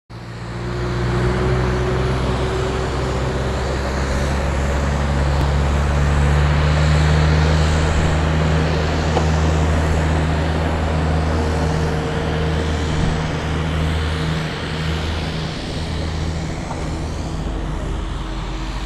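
Bell 212 helicopter's twin-turbine engines running during start-up, a steady loud drone with several low tones, as the main rotor begins to turn.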